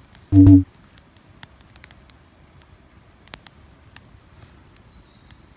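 A wood fire crackling, with sparse sharp pops. About half a second in there is one brief, loud, low sound.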